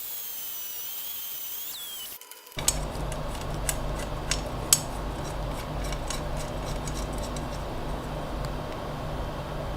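Electric drill running while cutting into metal: a steady motor hum with frequent sharp ticks and clicks of the bit and chips. For the first two seconds a high whine glides down and holds before a cut.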